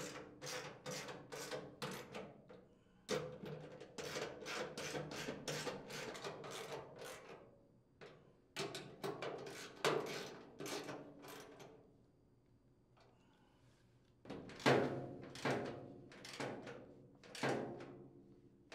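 Hex nuts being tightened with a hand socket driver on a chipper shredder's sheet-steel hopper and housing: quick, even metallic clicks at about three a second, in three runs with short pauses between, the middle run short.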